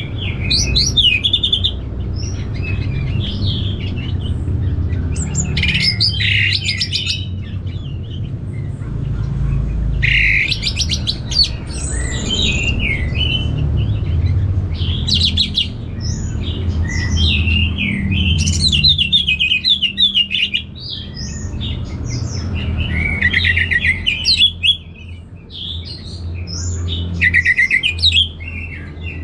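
Orange-headed thrush singing: repeated phrases of quick whistled notes and fast trills, coming every few seconds, over a steady low background rumble.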